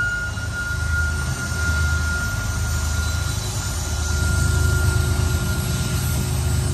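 Diesel-electric freight locomotives, BNSF and Kansas City Southern units, passing close at the head of a stack train. Their engines make a heavy steady rumble, with a steady high whine over it.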